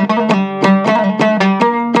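Instrumental passage of a Hazaragi folk song: a plucked dambura lute played in quick, even strokes, about six a second, over a held low drone note.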